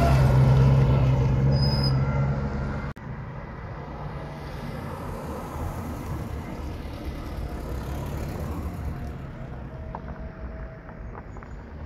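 A motor vehicle's engine running with a loud, low, steady hum that cuts off abruptly about three seconds in. A quieter, steady rumble follows.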